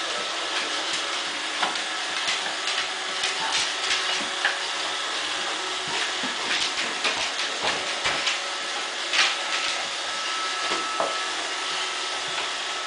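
iRobot Roomba robot vacuum running: a steady whir with a thin high tone, and many light clicks and knocks.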